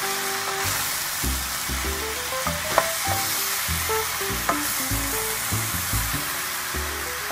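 Sliced button and portobello mushrooms sizzling in oil in an enamel pan as they are stirred with a wooden spoon, with a few sharp knocks of the spoon against the pan. Background music plays with short held notes.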